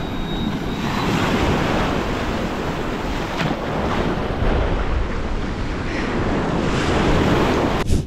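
Ocean surf washing onto a beach, with strong wind buffeting the microphone. The sound cuts off abruptly near the end.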